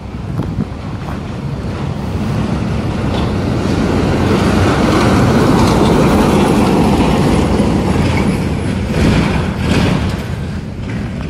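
A heavy articulated truck with a tarp-covered tipper trailer driving past close by: engine and tyre noise rising to a peak about halfway through, then fading as it goes.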